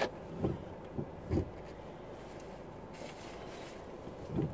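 Four soft, low thumps and rustles of clothing and hand movement brushing a clip-on microphone, over a faint steady background.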